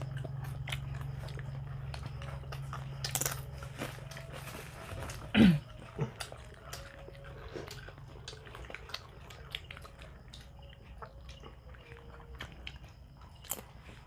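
People chewing pizza and crunchy nachos close to the microphone: repeated chewing with crisp crunches and small clicks over a low steady hum that fades about five seconds in. About five and a half seconds in comes a short sound sliding down in pitch, the loudest moment.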